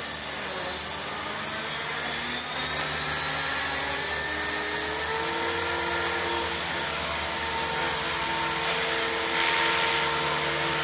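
Electric 450-size RC helicopter spooling up: the motor and main rotor whine, rising in pitch over the first few seconds, then hold a steady note as it lifts off and flies.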